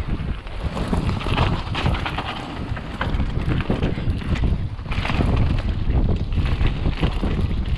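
Mountain bike riding fast down a dirt trail: wind on the microphone with a continuous low rumble, tyres crunching over dirt and dry leaves, and the bike rattling over bumps in many short knocks.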